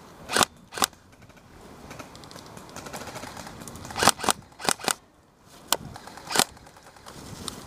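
Airsoft rifle firing single shots: about eight sharp cracks, a pair near the start, a quick group of four in the middle, then two more.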